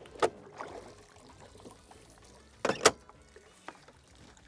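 Bow-mounted electric trolling motor being lifted and stowed on its mount: a sharp knock just after the start, then a louder double clunk near three seconds and a lighter knock after it.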